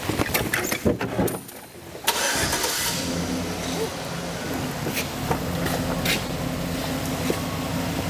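Light knocks and rattles of a Piper Cherokee's metal engine cowling being lifted and fitted, then, after a brief lull, a steady low mechanical hum with a rushing noise over it that starts suddenly about two seconds in.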